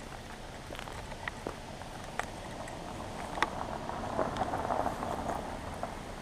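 A steady outdoor hiss, with a few light clicks and a slightly louder noisy stretch after about four seconds.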